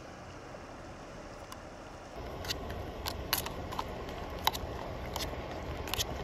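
A long-handled metal spoon clinking and scraping against a metal camp pot as it stirs thick oatmeal with walnuts: about seven sharp clicks over the last four seconds. Before that, a faint steady rush of river water.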